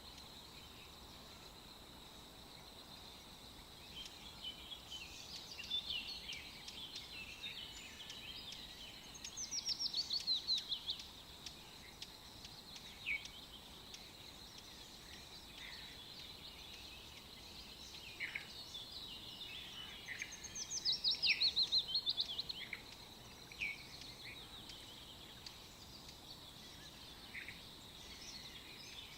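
Songbirds singing: scattered high chirps and two loud trills of rapidly repeated notes, about eleven seconds apart, over a faint steady hiss.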